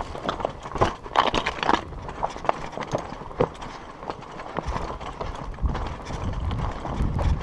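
Surly Moonlander fat bike rolling over loose rock: an uneven run of clicks and knocks from the tyres and rattling bike, over a low rumble that grows stronger in the second half.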